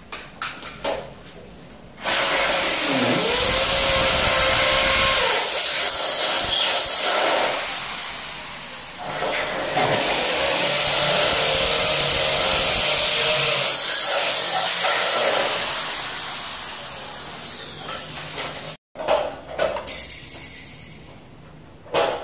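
A power tool running under load: a loud steady whirring hiss with a motor tone that dips and rises. It starts suddenly about two seconds in and cuts off near the end, with a few light knocks before and after.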